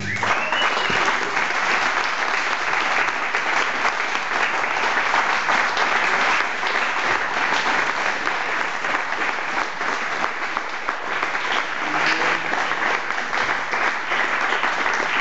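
A small seated audience applauding steadily by hand, right after the music has stopped.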